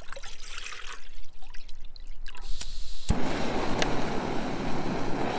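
Water poured into an empty metal cooking pot for about three seconds, then a sharp click as a small backpacking canister stove is lit, its burner running with a steady hiss.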